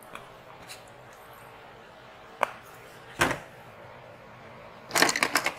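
Paint containers and mixing tools being handled on a work table while acrylic paint is mixed: a sharp click, a knock, then a quick rattling run of clicks near the end.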